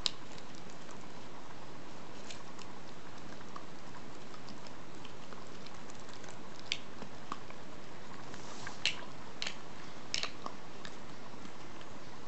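Staffordshire Bull Terrier puppy chewing and gnawing on a piece of pork aorta, with scattered clicks and snaps of its teeth. A few sharper ones come about seven, nine and ten seconds in.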